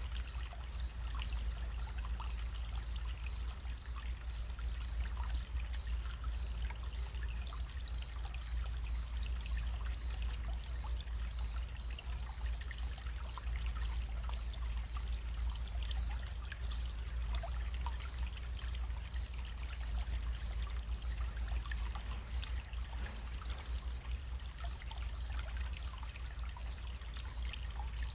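Small stream running: a steady trickle of water with many tiny splashes, over a steady low rumble.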